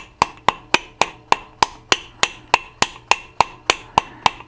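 Hammer tapping the magneto flywheel of a Solex 3800 engine gently and steadily onto the tapered end of the crankshaft to seat it. About three or four light taps a second, each with a short metallic ring.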